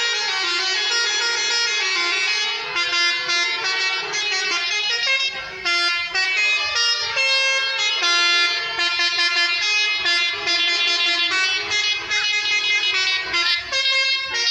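Multi-tone telolet horns on tour buses playing a quick tune: chords of horn notes that step from pitch to pitch every fraction of a second, loud and almost unbroken.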